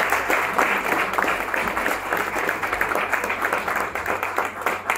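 Audience applauding, a dense patter of many hands clapping that thins out and quietens toward the end.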